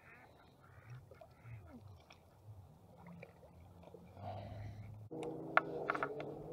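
Faint handling ticks and rustles as a small largemouth bass is unhooked from a lipless crankbait and let go. About five seconds in a steady droning hum starts suddenly, with a few sharp clicks just after.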